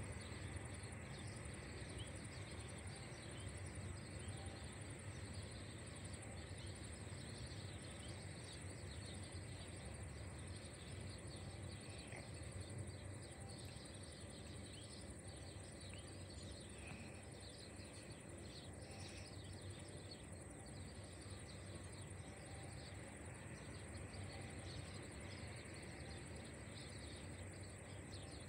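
Quiet outdoor ambience: scattered small-bird chirps and a steady high insect-like hiss over a faint low rumble from a distant jet airliner taxiing.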